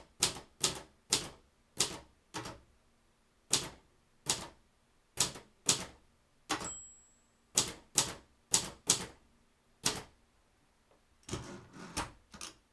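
Royal 260 typewriter being typed on: about twenty sharp key strikes at an uneven hand pace, with a short high ring a little past halfway, like the typewriter's margin bell, and a quick run of strikes near the end.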